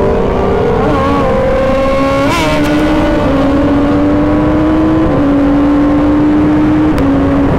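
Motorcycle engine pulling under way, its pitch climbing slowly and dropping back several times at gear changes, over a steady rushing noise.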